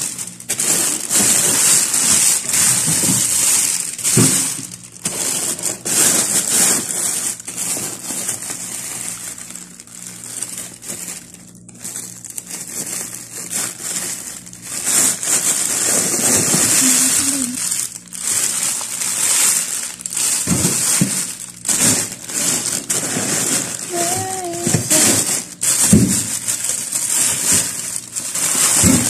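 Plastic bags of frozen food crinkling and rustling as they are rummaged through and pulled about in a freezer, with irregular crunching handling noises.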